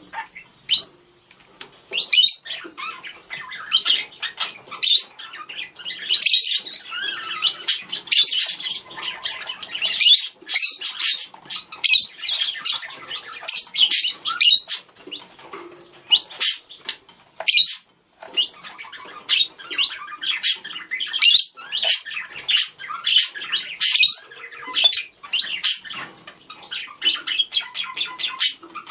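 Budgerigars chattering and calling to each other: fast warbling chirps and short squawks, almost without a break.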